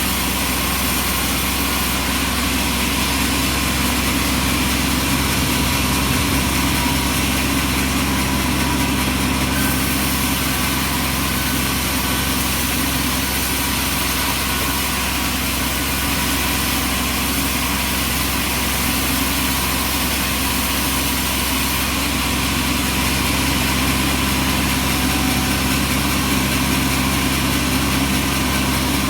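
Bandsaw sawmill running steadily: a constant low engine drone with an even hiss over it, unchanging throughout.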